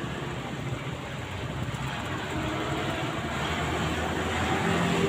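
A motor vehicle's engine running steadily and drawing nearer, growing louder toward the end.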